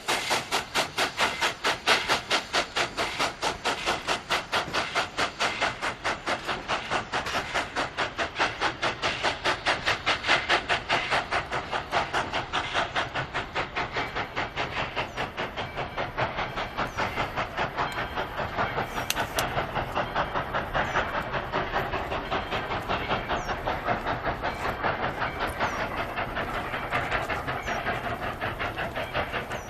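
Steam locomotive exhaust chuffing in an even, quick beat, about four chuffs a second, as the engine works the train along.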